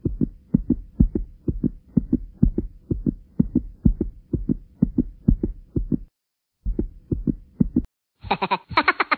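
A low thumping beat, about four thumps a second, over a faint steady hum. It breaks off briefly about six seconds in and stops near eight seconds.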